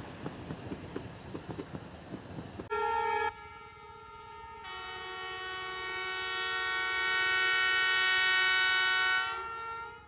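A passing train's wheels clatter rhythmically over the rails and die away. Then an Indian Railways locomotive's air horn sounds several tones at once: a short blast about three seconds in, then a long blast that swells louder for about four and a half seconds and cuts off shortly before the end.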